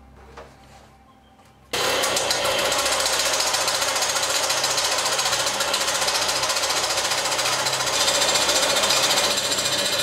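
Small metal-cutting bandsaw slicing through a 3 mm brass strip. The blade bites into the brass suddenly about two seconds in, and from then on there is a loud, steady cutting noise.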